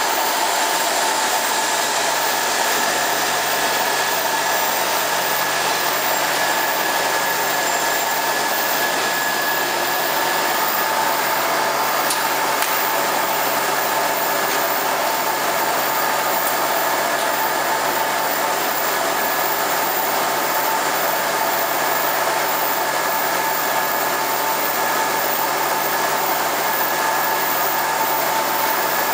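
Vial washing and drying machine running: a steady whir and rush of fan-driven air with a constant whine in it.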